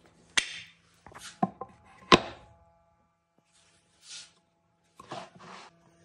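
A wooden bearing block being handled on a steel shaft: three sharp wooden knocks in the first two and a half seconds, the third the loudest, with short brushing and rubbing handling noises in between and again near the end.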